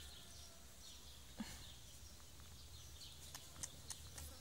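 Faint outdoor ambience: a quiet background hiss with scattered faint bird chirps and a few soft clicks.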